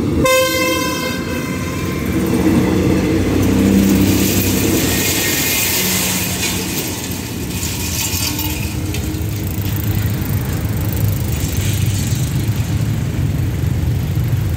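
Diesel multiple-unit express train passing close by: wheels clattering on the rails over a low engine rumble, loudest in the first half and dying away as the train recedes. A short pitched tone sounds about a quarter of a second in and lasts about a second.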